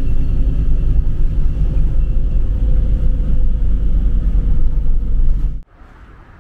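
Steady low rumble of a moving bus's engine and tyres heard inside the cabin. It cuts off abruptly about five and a half seconds in, leaving a much quieter outdoor background.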